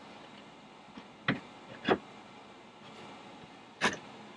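A hinged wooden countertop lid knocking and clunking as it is handled and swung open. There are three short knocks, and the last, near the end, is the loudest.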